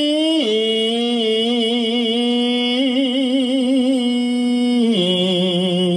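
Khmer smot, Buddhist chanted poetry sung unaccompanied by one male voice: long held notes with a wavering vibrato, dropping to a lower note about half a second in and again about five seconds in.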